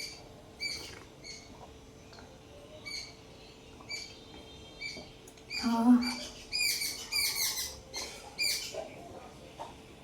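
Small birds chirping: short high notes repeating about twice a second, growing into a busy run of chirps in the second half.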